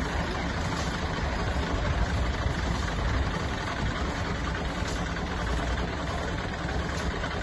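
A steady low engine rumble, running evenly without change.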